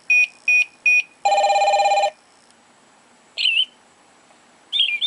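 LifeMax Natural Sound Starlight Clock's electronic alarm beeping three more times, about two and a half beeps a second, then a longer pulsing tone of just under a second. After a pause its recorded birdsong plays from the clock's small speaker: two short chirps, about three seconds in and near the end.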